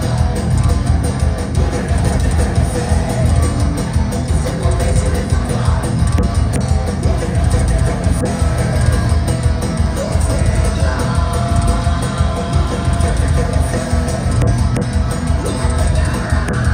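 Thrash metal band playing live at full volume: distorted electric guitars over bass and a pounding drum kit, heard from within the audience.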